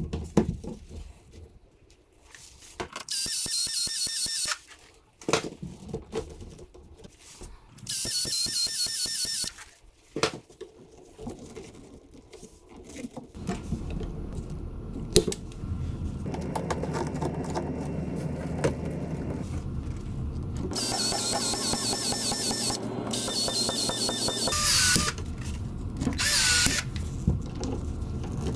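Power drill running in repeated short bursts of a second or two, with a squeal near the end and steady mechanical noise under the second half.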